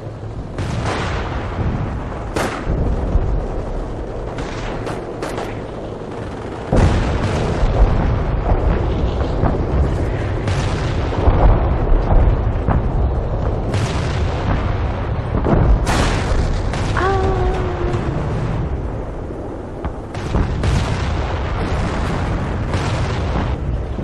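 Battlefield sound effects: a continuous low rumble of explosions with many sharp blasts and shots. It gets louder about seven seconds in.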